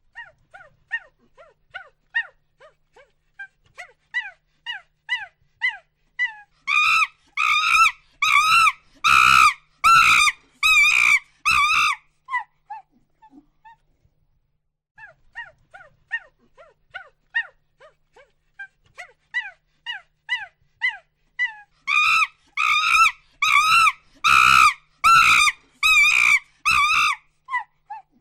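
A monkey hooting: a series of short hoots that start soft and spaced, quicken and grow louder into a loud run of high calls, then taper off. After a pause of about two seconds, the same build-up and climax comes again.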